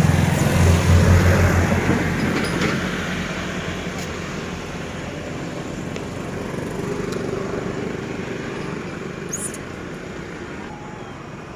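A motor vehicle's engine, loudest in the first two seconds and then gradually fading away.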